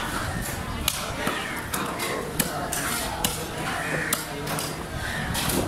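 Heavy cleaver chopping through a red wavy-lined grouper onto a wooden chopping block: several sharp knocks about a second apart.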